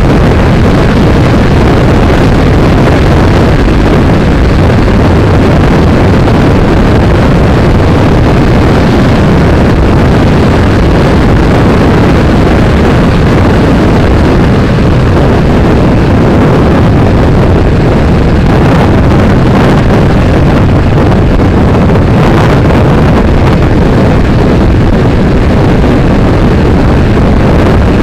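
Motorcycle riding at road speed: a loud, steady rush of wind buffeting the microphone over the engine's running drone.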